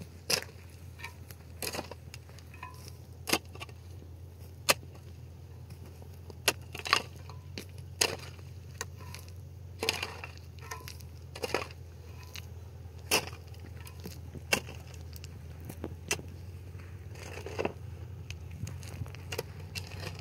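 Long-handled shovel digging a trench in dry, clumpy earth: the blade strikes and scrapes into the soil about every second and a half, with a crunch of breaking clods.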